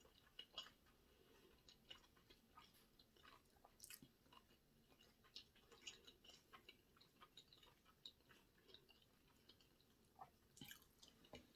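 Faint chewing of sushi close to the microphone: scattered soft, wet mouth clicks and smacks.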